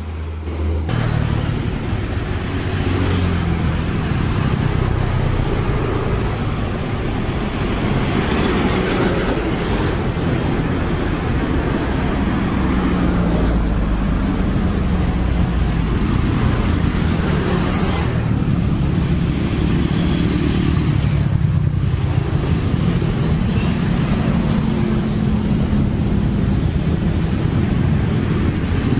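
Dense road traffic: engines of trucks, cars and motorcycles running and passing close, with engine pitches rising and falling over a steady road rumble.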